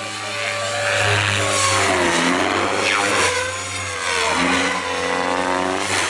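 Goblin 700 radio-controlled helicopter with a three-blade main rotor flying overhead: motor and rotor whine that dips and rises in pitch several times as it passes and manoeuvres, with brief louder rushes of rotor noise.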